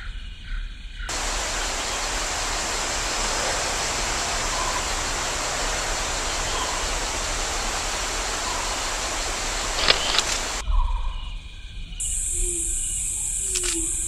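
Steady rushing noise of a river, starting abruptly about a second in and cutting off suddenly near the end, with a sharp click just before it stops. A quieter ambience with a high, steady insect-like hum follows.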